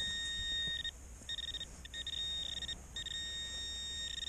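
Handheld metal-detecting pinpointer sounding its alert tone as it is probed through the dug soil and finds a metal target: a steady electronic beep that cuts out and comes back about four times, stuttering quickly at times.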